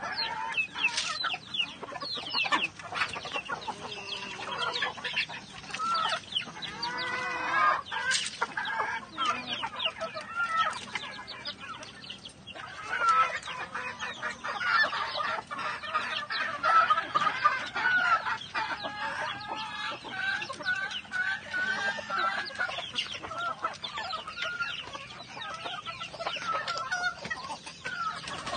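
A flock of heritage chickens clucking at feeding time, many short calls overlapping without a break.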